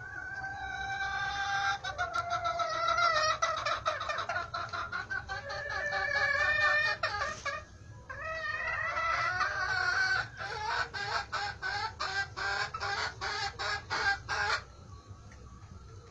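Flock of young poultry calling loudly: overlapping drawn-out calls, a short lull, then a fast run of short repeated notes from about ten seconds in that stops shortly before the end.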